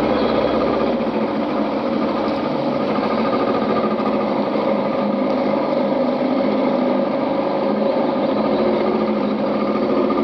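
Small boat's motor running steadily as the boat moves along the river.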